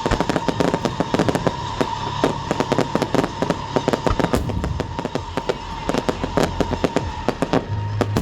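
Fireworks going off in quick succession: a dense run of sharp crackling pops, many a second, over a steady high tone that stops near the end.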